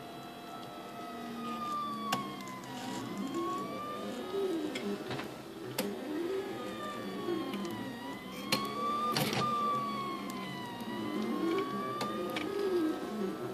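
RepRap Prusa 3D printer's stepper motors singing as the head traces circles: a whine that rises and falls smoothly, dipping every few seconds, with lower tones sweeping beneath it. Sharp clicks come now and then, the extruder stepper skipping because the set screw on its small drive gear is loose.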